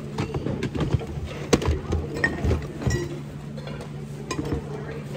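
Plastic VHS tape cases clacking and knocking against each other as they are flipped through in a cardboard box, a dozen or so sharp clicks at irregular intervals. A steady low hum runs underneath.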